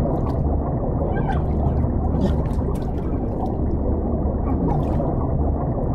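Deep-water ambience sound effect: a steady deep rumble, with gurgling bubbles, short wavering moans and scattered clicks over it.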